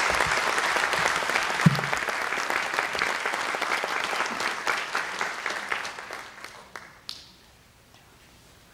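Audience applauding: dense clapping that tapers off and dies away about seven seconds in.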